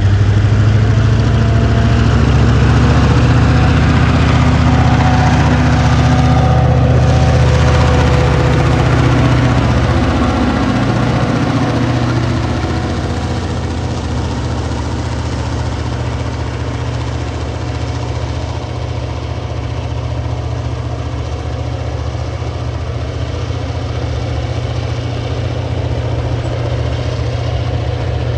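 Two TasRail diesel locomotives working hard under load as they haul a coal and container train up a grade. Their deep engine note drops in pitch as they pass close by, about ten seconds in. After that comes a steadier rumble of coal wagons rolling past.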